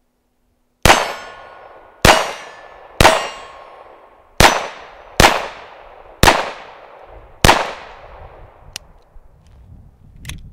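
Seven shots from a GSG 1911 .22 LR pistol firing CCI Mini Mag rounds, about one a second, each sharp crack followed by a ringing tail. A couple of faint clicks follow near the end.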